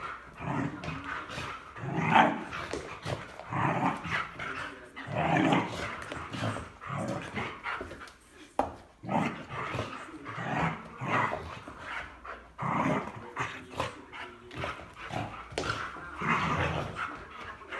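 Rhodesian Ridgeback growling and barking in play, in repeated bursts every second or two.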